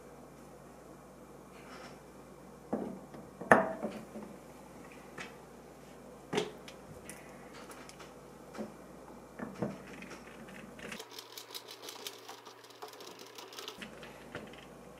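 Scattered sharp knocks and clicks, the loudest about a third of the way in, as a clear plastic faucet knob is handled and fitted back onto its valve stem. Near the end comes a rapid run of clicking for about three seconds from a ratcheting screwdriver tightening the knob's screw.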